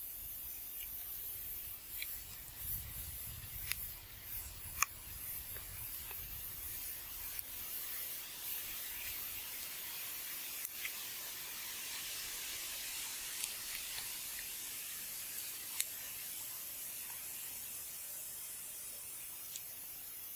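A steady high hiss, with a few faint clicks and taps scattered through it.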